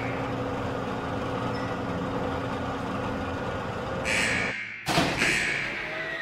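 Soundtrack drone under the end credits: a steady noisy rumble with a low hum, broken about four seconds in by a short hiss, a brief drop-out and a sharp hit, followed by a tone that slowly falls.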